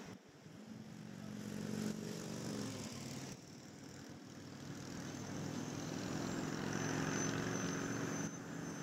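Road traffic: vehicle engines running and passing, growing louder in the second half.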